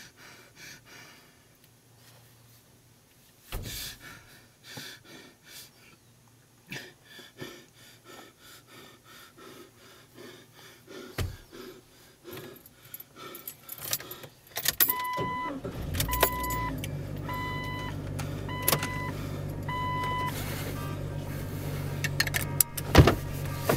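Car keys jingling and rattling for several seconds. The car's engine then starts and settles into a steady idle, while a dashboard warning chime dings about six times, once a second. A sharp knock comes near the end.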